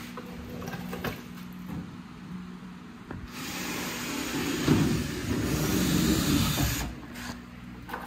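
Cordless drill starting about three seconds in and running for about three and a half seconds as it bores into a race car's side body panel, drilling out a rivet. A few light clicks of handling come before it.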